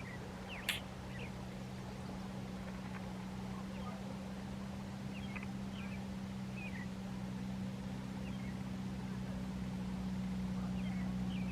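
A distant engine hums steadily, slowly growing louder, with short high bird chirps scattered throughout and one sharp click about a second in.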